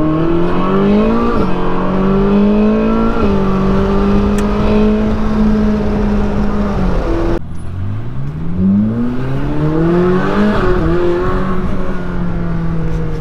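Ferrari 458 Speciale's naturally aspirated V8 heard from inside the cabin, pulling hard with the pitch climbing and dropping at two quick upshifts, then holding a steady note. After an abrupt break about seven seconds in, it climbs through the revs again and settles into a steady run.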